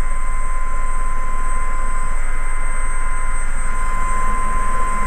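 ES101 Raven helicopter hovering low, heard from inside the cockpit: steady engine and rotor noise with a low rumble and a constant high-pitched whine.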